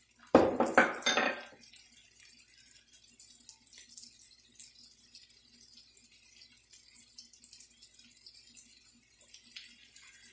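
Frozen peas and carrots with onions sizzling in hot oil in a wok, a steady fine crackle. There is a loud clatter of kitchenware about half a second in.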